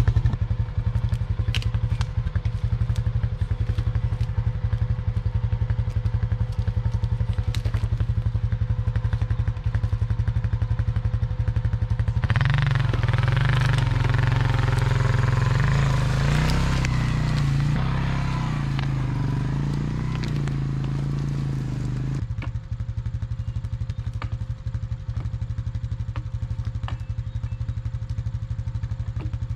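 ATV engine idling steadily, with a stretch of about ten seconds in the middle where it runs harder and its pitch rises and falls as the machine drives. Faint knocks come and go over it.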